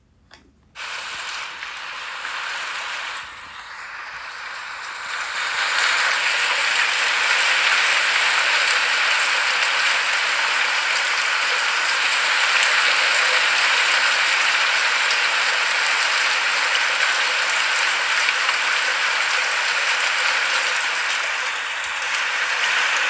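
Rain falling: a steady, even hiss of dense drops that starts suddenly about a second in and builds to full strength by about six seconds.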